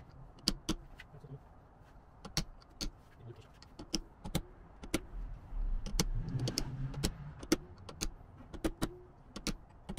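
Ball-peen hammer striking a brass drift in a string of irregular metallic taps, about two a second, driving a new outer wheel-bearing seal into a 3rd-gen Toyota 4Runner front steering knuckle. The seal is still going in crooked and is not yet seated, so the taps have not yet turned to the more solid sound of a fully seated seal.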